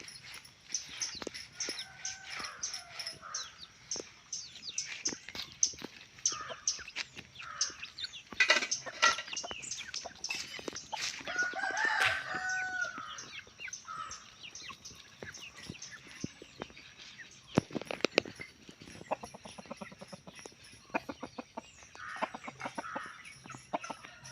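Roosters clucking and crowing, with a louder call about twelve seconds in, over many sharp clicks and scratchy knocks.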